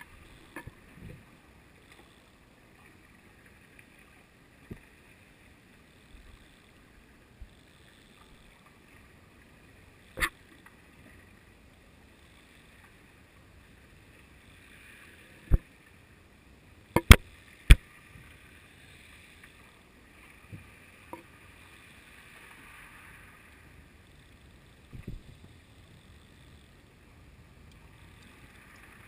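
Muffled underwater sound picked up through a GoPro's waterproof housing hung on a lead jigger: a faint steady hiss broken by scattered sharp knocks on the housing, the loudest a quick group of three about two-thirds of the way through.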